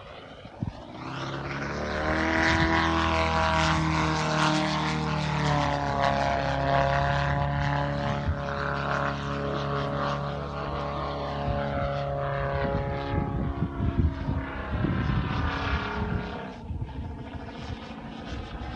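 Valach 420 engine of a 4.5 m Pilot-RC Yak 54 radio-controlled aerobatic plane in flight, propeller drone swelling in the first couple of seconds and holding steady with slow small shifts in pitch, then fading about two-thirds of the way through.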